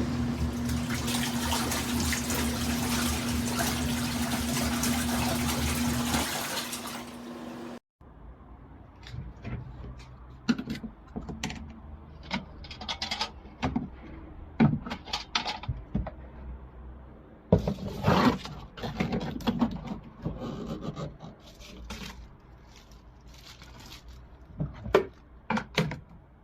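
Water rushing loudly with a steady hum under it, cutting off abruptly about eight seconds in. After that come scattered clicks and knocks, with a short rush of noise around the middle.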